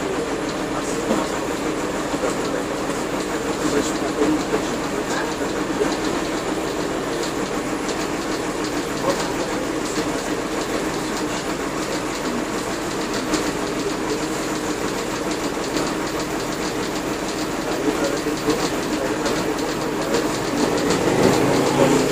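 Mercedes-Benz OF-1721 bus under way, its OM-366LA turbodiesel straight-six running steadily, with many small clicks and rattles throughout. The engine gets louder near the end.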